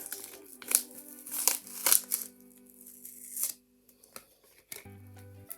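Plastic packaging of a play foam toy being torn open and crinkled in a few sharp crackles over background music. The crackling stops a little past halfway.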